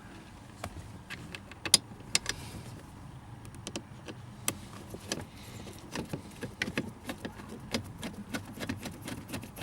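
Screwdriver driving a screw into a car's plastic interior trim panel: scattered sharp clicks and small knocks, coming faster in the second half, from the tool and the screw working against the plastic.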